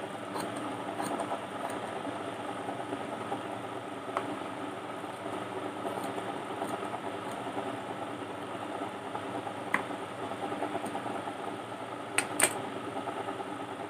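Large tailor's scissors cutting through cloth, with a few sharp clicks of the blades, the loudest two close together near the end, over a steady machine-like hum.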